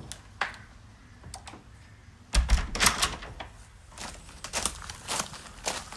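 Irregular sharp clicks and light knocks, with a heavier thump about two and a half seconds in and the clicks coming closer together near the end.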